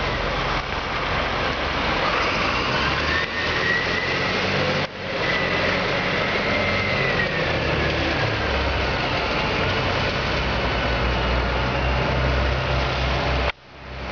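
Diesel engine of a medium-duty truck running as the truck drives slowly past and away, under a steady hiss. The sound drops out abruptly for a moment twice.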